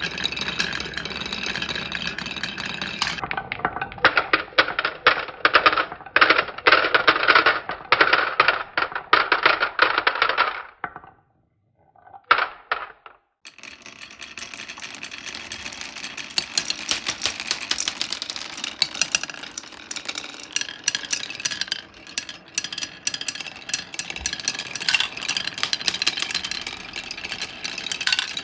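Glass marbles rolling and clattering down a wooden marble run: a dense stream of rapid clicks and rattles, broken by a short silence about eleven seconds in.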